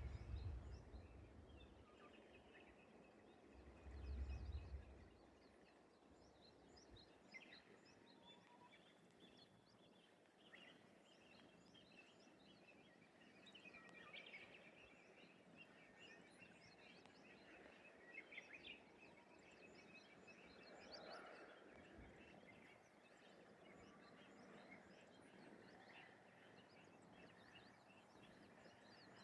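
Faint countryside morning ambience with many small birds chirping and calling on and off. A brief low rumble sounds about four seconds in.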